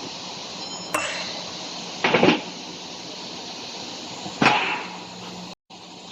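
Three sharp metallic knocks over a steady hum: a light click about a second in, a loud double clunk about two seconds in, and another clunk near the middle.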